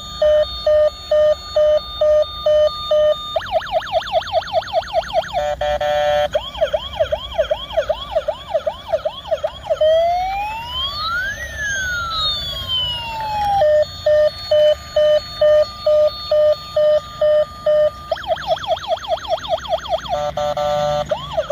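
Battery-powered toy ambulance's electronic siren sound effect cycling through its patterns. It starts with a beeping two-tone pulse about three times a second, then fast warbling yelps, one slow rising and falling wail near the middle, then the beeping and warbling again.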